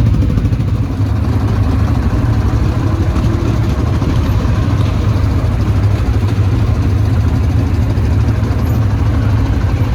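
ATV engine idling steadily, a loud even low rumble.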